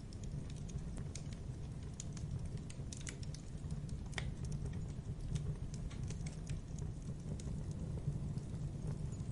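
Fire crackling: a steady low rumble with many sharp, irregular pops and crackles.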